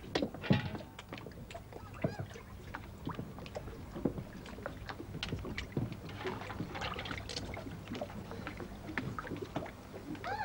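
Scattered knocks and clatter from hands-on work on the deck of a wooden sailing boat, with water splashing in a metal bucket, over a steady low hum.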